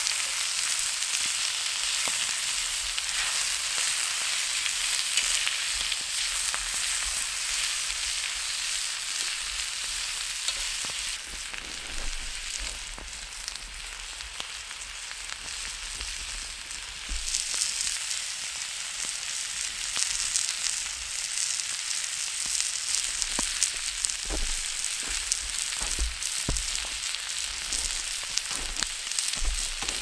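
Smoked moose meat frying in a cast iron pan over a campfire: a steady sizzle with scattered pops and crackles, the pops coming more often in the last few seconds.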